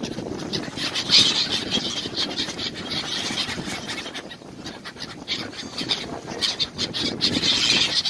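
A flock of gulls calling, many shrill, squealing cries overlapping, loudest about a second in and again near the end, over a steady low rumble.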